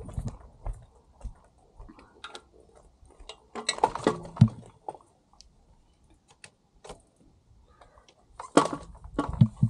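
Irregular knocks, clanks and rattles as a bike is pushed and wedged against steel gate posts in a narrow gap. There are two louder bursts of clattering, about four seconds in and again near the end.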